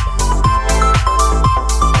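Electronic background music with a steady beat of about two kick-drum hits a second, a bass line and a bright repeating synth melody.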